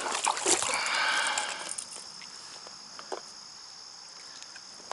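Steady high-pitched insect chirring throughout, with a burst of rustling, handling noise and a few clicks in the first two seconds.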